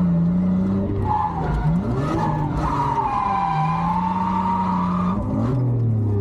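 A drift car sliding: its tyres squeal in long wavering tones while the engine's revs rise and fall.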